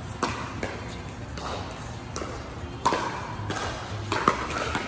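Pickleball rally: paddles striking the hollow plastic ball, a string of sharp pops at irregular intervals, the loudest about three seconds in and near the end.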